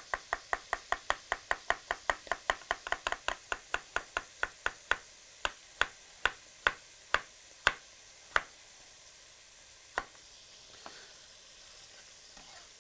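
A sharp chef's knife slicing carrots into rounds on a wooden cutting board: quick, even chops about five a second, slowing to about two a second after four seconds, with a last cut about ten seconds in.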